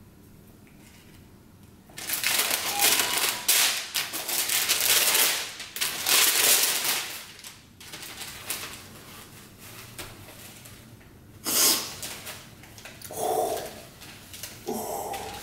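Tissue paper rustling and crinkling as it is handled and unfolded in a shoebox: a long stretch of crackly rustling starting about two seconds in, then shorter rustles near the end.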